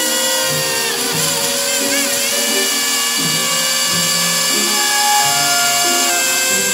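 Countertop blender motor running at full speed, puréeing chunks of apple with a little water. Background music plays underneath.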